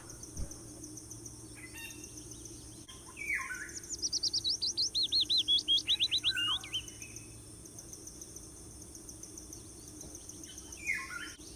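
A small songbird singing a quick run of about fifteen repeated high notes, the run falling in pitch, starting about three seconds in and lasting about three and a half seconds. A few short chirps come before and after, over a faint steady high drone.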